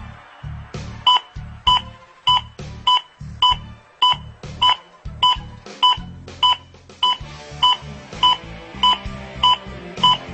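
Zoll AED Plus defibrillator's CPR metronome beeping at an even pace, a short beep about every 0.6 seconds (roughly 100 a minute), starting about a second in, setting the rhythm for chest compressions.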